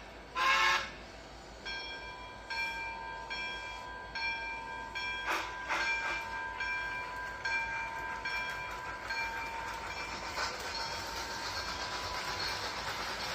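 A train bell ringing in a steady rhythm, a little more than once a second, over the running noise of a train, with two sharp clanks midway. Near the end the bell stops and the rolling noise grows.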